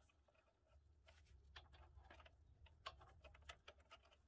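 Faint, scattered small metallic clicks and taps as a nut and bolt are handled and fitted into place on a car's front lower control arm bushing, over a low steady hum.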